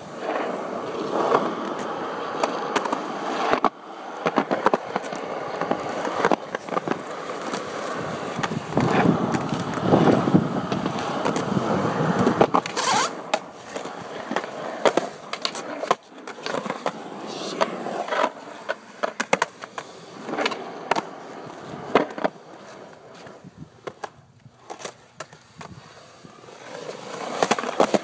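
Skateboard wheels rolling over skatepark concrete in a steady grinding rumble, broken by many sharp clacks of the board hitting the ground. The rolling eases off into a quieter stretch near the end, then picks up again.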